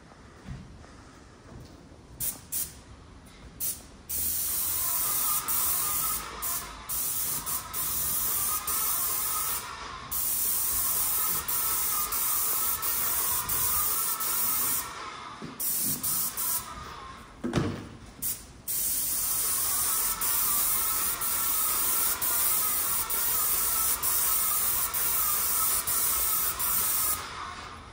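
Small handheld electric paint sprayer spraying paint onto a wall: a loud, steady hiss in long spells broken by short pauses, after a few brief spurts at the start.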